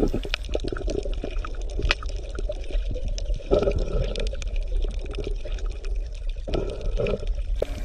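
Underwater water ambience: a steady low rumble with dense fine crackling clicks, and louder gurgling stretches about three and a half seconds in and again near the end.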